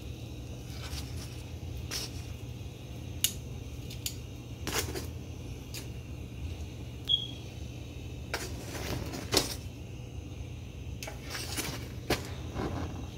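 Metal kitchen tongs clicking and clattering now and then against a gas stove's grate while turning a chapati over the flame, over a steady low hum.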